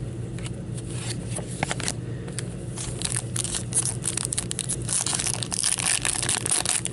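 A foil trading-card pack wrapper being torn open and crinkling, with a dense crackle from about three seconds in. Before it come a few light clicks of cards being handled.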